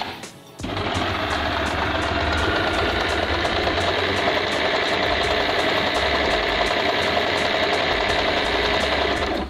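Usha Janome Dream Stitch electric sewing machine running steadily at speed, its motor and needle mechanism stitching through cloth. It starts about half a second in and stops just before the end.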